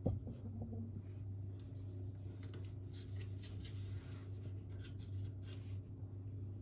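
A soft knock right at the start, then light scratching and small taps from handling something by hand, over a steady low hum.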